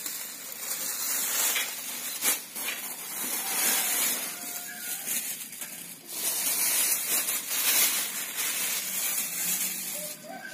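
Close, uneven rustling and crackling as hands work a serissa bonsai's root ball, loosening soil from the roots. The sound swells and falls with the handling.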